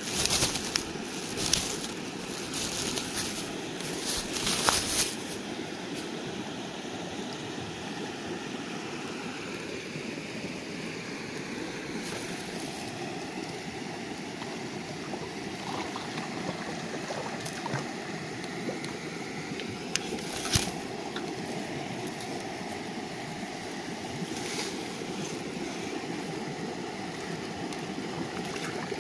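River water flowing steadily, a continuous rushing. In the first few seconds there is a cluster of rustles and knocks from handling and movement, and a few single knocks later on.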